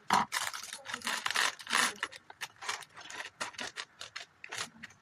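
Plastic Lego parts bag crinkling and rustling as it is opened and handled, with small plastic bricks clicking and rattling inside, in a quick irregular run of crackles.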